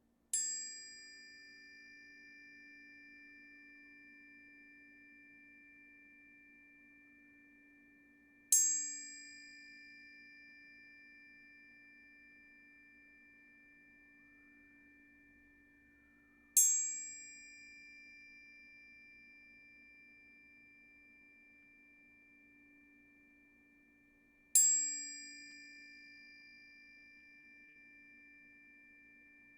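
A high metal chime struck four times, about eight seconds apart. Each strike has a bright attack and then rings on in two steady high tones that fade slowly, over a faint low steady tone.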